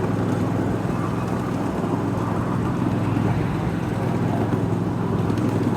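Ride-on miniature diesel-style locomotive running steadily, a continuous low engine hum with rough noise over it.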